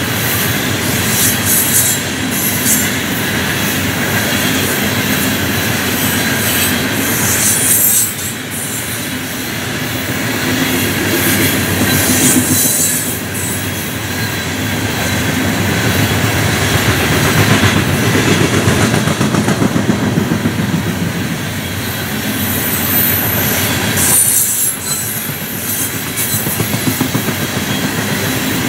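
Loaded coal hopper cars rolling past on steel rails: a steady rumble of wheels on track with rhythmic clicking over rail joints, and brief high wheel squeals several times.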